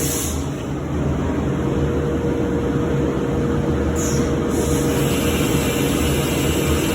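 CNC woodworking machine running steadily, with a constant hum and tone; a high hiss starts about four seconds in.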